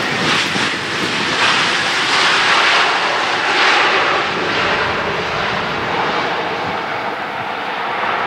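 Twin jet engines of an Airbus A321 running loud as it rolls along the runway: a dense, steady rushing sound that swells a couple of seconds in and then eases a little as the jet moves away.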